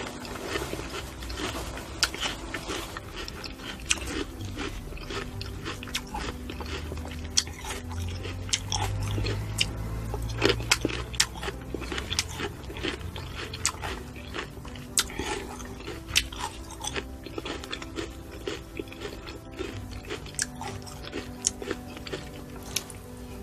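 A person biting and chewing fruit, with many sharp crunching clicks scattered irregularly through, over faint background music.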